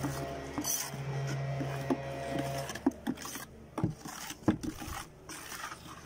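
A hand kneading and squeezing cloth in wet cement slurry in a plastic bucket: irregular wet rubbing and scraping, with scattered knocks against the bucket, the sharpest about four and a half seconds in.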